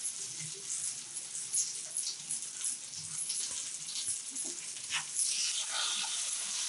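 Beef burger patties and streaky bacon frying in a pan: a steady sizzle with small crackles, getting louder about five seconds in.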